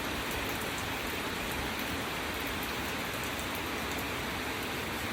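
Steady rain falling: an even hiss of rain with scattered drop ticks.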